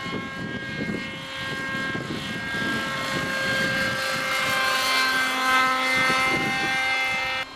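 Hirobo Shuttle RC model helicopter in flight, its OS 37 two-stroke glow engine and rotors giving a steady high whine. The whine swells louder and shifts slightly in pitch through the middle, then drops off abruptly at the end.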